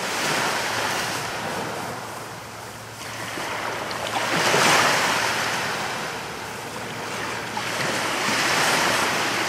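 Sea surf: waves breaking and washing back, swelling and easing off about every four seconds.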